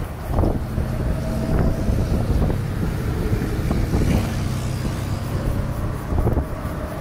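Wind buffeting the microphone of an open vehicle under way, over a steady road rumble, with several short thumps from bumps.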